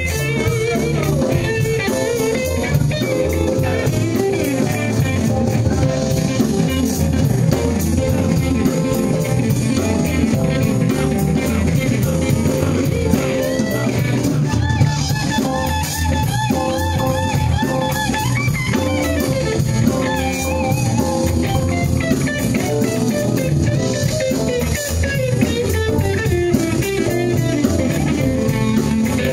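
A live band playing instrumental music, electric guitar, bass guitar, keyboards and drum kit together, with a melody line bending and wavering over the steady rhythm section.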